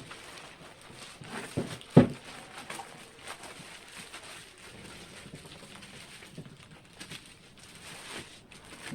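Plastic bag rustling as a soundbar is slid out of it, with a few handling thumps, the loudest about two seconds in.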